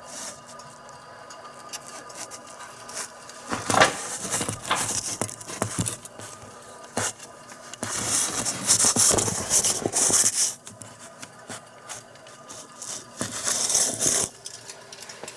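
Immersion tube burner making an abnormal noise: irregular scraping, hissing rasps that come and go, the longest lasting a second or two, over a faint steady hum.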